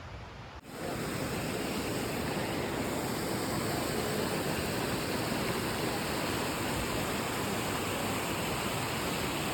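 Waterfall rushing: a steady, dense roar of falling water at the top of Multnomah Falls, cutting in abruptly about half a second in.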